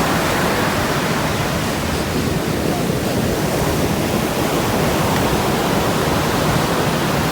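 Steady rushing noise of wind and breaking surf, with no distinct events.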